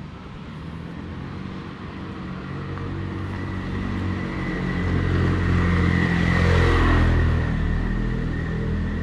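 A motor vehicle's engine approaching and passing close by. It grows steadily louder, is loudest about six to seven seconds in, then fades, with a thin steady whine running through it.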